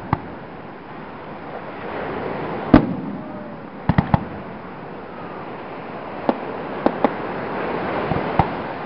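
Aerial fireworks shells bursting in a series of sharp bangs: one right at the start, a loud one just under three seconds in, a quick cluster of three about four seconds in, a few more around six to seven seconds and one near the end, with steady background noise between them.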